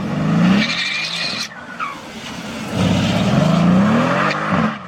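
Modified car accelerating hard at full revs, its engine pitch rising twice, with tyres squealing about half a second in.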